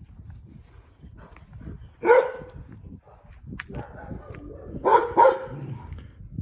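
Dog barking: one bark about two seconds in, then two quick barks near five seconds, over a low rumble.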